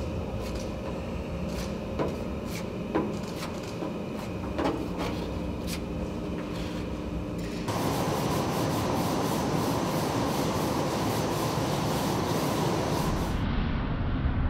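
A few scattered knocks and clicks over a low hum, then from about eight seconds in a loud, steady scraping of sanding blocks rubbed by hand over body filler on a car's metal bodywork.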